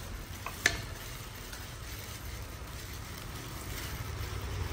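Soft crinkling and rustling of disposable plastic gloves as hands work and shape a mung-bean and coconut filling, with one sharp click about half a second in.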